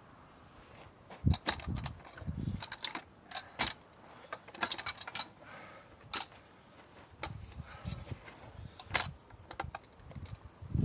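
Irregular sharp metallic clinks and knocks, about a dozen over the stretch, with soft scuffing between them: metal tools being handled.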